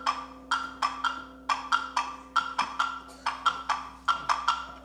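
Hand-held wood blocks struck with sticks in a quick, even rhythm of sharp knocks, about four a second in little groups, alternating between two pitches with a short ring after each.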